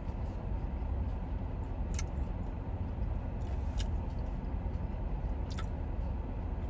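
Steady low rumble of a car cabin, with a few faint clicks about every two seconds from chewing a mouthful of burger.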